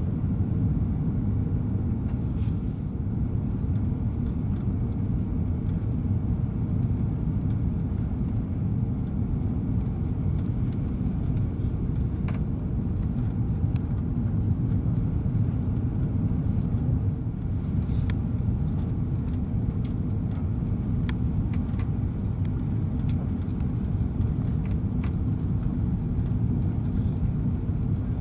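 Steady low rumble of engines and airflow heard inside the cabin of a four-engine Airbus A340 airliner on approach, with a few faint clicks.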